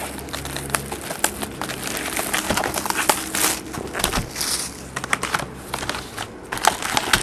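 Trading-card pack wrappers crinkling and tearing as packs are opened: an irregular run of crackles and rustles.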